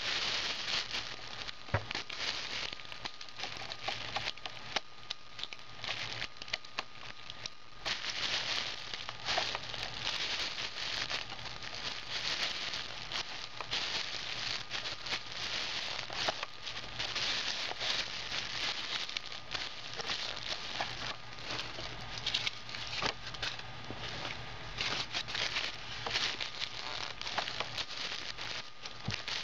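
Plastic bag crinkling and crackling steadily as it is squashed down inside a hand-worked Lego compactor, a dense run of small crackles.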